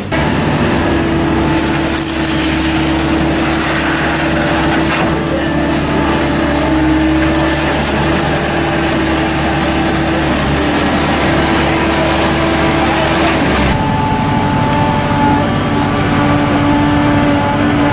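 Heavy diesel machinery running steadily with a constant low engine hum. About 14 seconds in, the sound switches abruptly to a different engine note.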